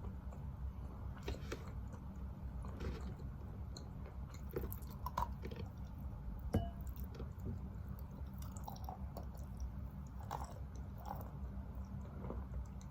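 Close-up chewing of a piece of wet Khrapovsky chalk: irregular crunches and squishes as the gritty chalk is bitten and chewed down into a paste, with one sharper crunch about six and a half seconds in.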